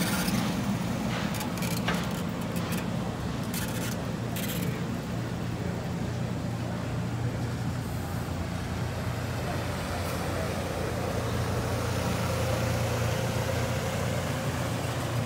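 Stainless-steel passenger railcars rolling past close by: a steady rumble of steel wheels on the rails, with a few sharp clicks in the first few seconds.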